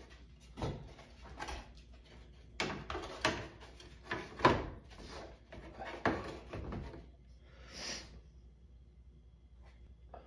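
Sheet-metal top panel of an LG front-load washing machine being shifted and lifted off the cabinet: a string of sharp knocks and clunks, the loudest about four and a half seconds in, and a short scrape near the end.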